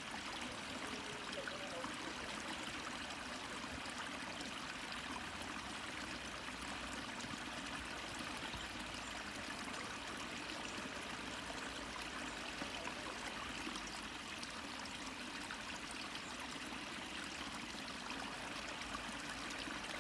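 Water flowing into a pond, a steady, even rush of running water.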